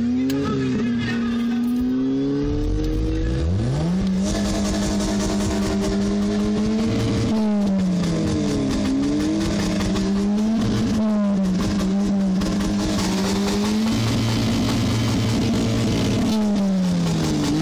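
Car engine revved hard and held at high revs, the pitch dipping and climbing back several times.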